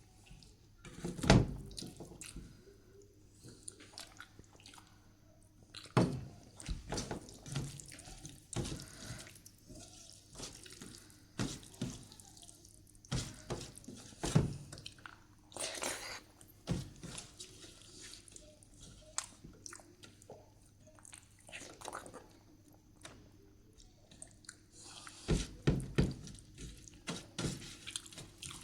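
Close-up eating sounds of rice with dal and mashed-potato chokha: irregular small clicks and smacks of mouth and food, with a few louder ones scattered through.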